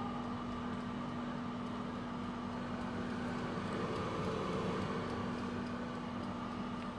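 Rapido air fryer running: its fan whirs with a steady, even hum.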